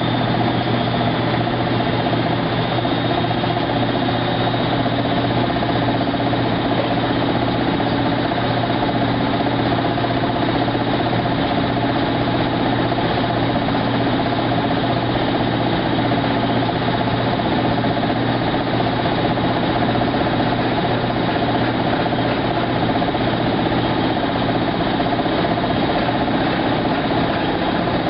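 Maytag SoftMount commercial washer running with a steady, unbroken mechanical hum and vibration, holding one speed throughout.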